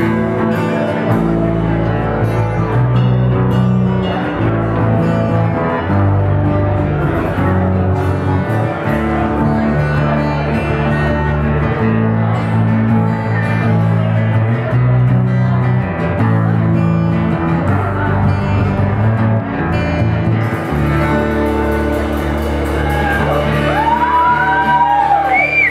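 Live acoustic band performance: strummed acoustic guitars over bass guitar, played at a steady loud level. A few high gliding notes come in near the end.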